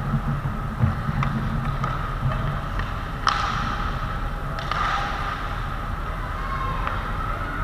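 Ice hockey rink noise during play: a steady wash of skates on ice and arena hum, with a few sharp knocks, the two loudest about three seconds in and again a second and a half later.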